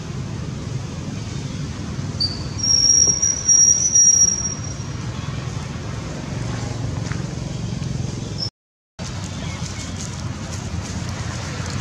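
Steady low outdoor rumble, with a loud, high, thin whistling tone held for about two and a half seconds, a couple of seconds in. The sound cuts out briefly near the end.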